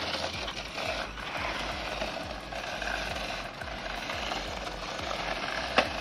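Small electric motors and plastic gears of two toy remote-control cars, one a rock crawler, whirring steadily as they drive on asphalt. A single sharp knock near the end as the two cars bump into each other.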